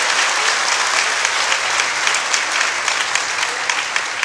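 Crowd applauding, the clapping thinning near the end into scattered separate claps.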